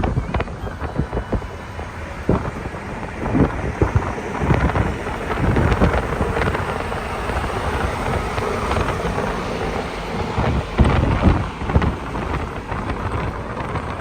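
Sea waves and wind, with wind buffeting the microphone in a heavy, rumbling, uneven surge.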